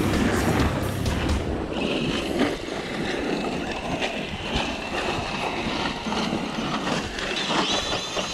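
Electric RC car running over dirt, its motor and drivetrain giving a steady high whine with a rushing noise underneath.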